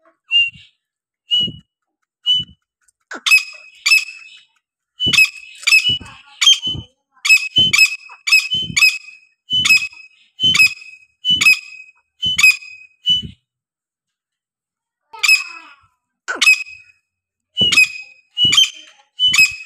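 Caged grey francolins (teetar) calling: a long series of short, sharp whistled notes. A few soft single notes build into a rapid run of one to two notes a second, which breaks off briefly and then starts again.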